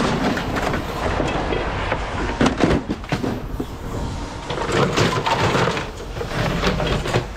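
Scrap metal being unloaded: pieces clank and bang against each other in an irregular series of knocks, over a steady low rumble.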